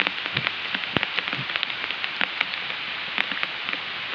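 Water splashing and pattering: a steady hiss with many small, sharp splashes or drips scattered through it.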